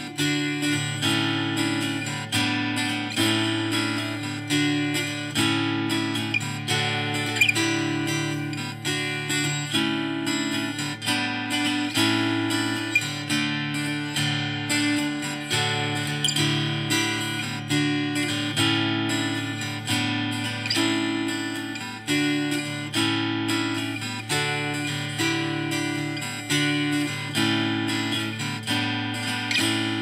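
Intro music: a strummed acoustic guitar piece with a steady rhythm.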